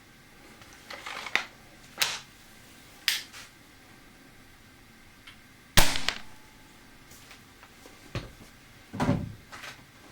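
One shot from a .20 calibre HW99 air rifle: a single sharp crack about six seconds in, the loudest sound, with a brief ring after it. A few lighter clicks come before it and some low knocks near the end.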